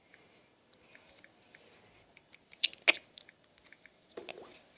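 Light, irregular taps and clicks of fingers on a phone's touchscreen while typing a message, with two sharper clicks just before three seconds in.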